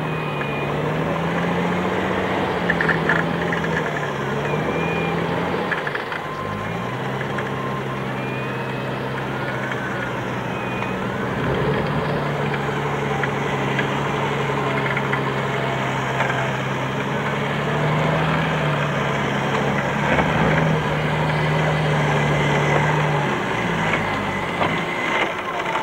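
Jeep off-roader's engine running steadily while it is winched up a steep slope; the note drops slightly about six seconds in and rises briefly about eighteen seconds in.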